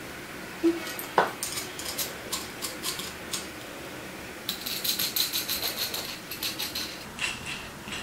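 Light metal clicks and clinks from a zinc EMT compression connector being handled and its nut turned by hand on steel conduit, with a couple of sharper knocks near the start and a quicker run of thin metallic ticking a little past the middle.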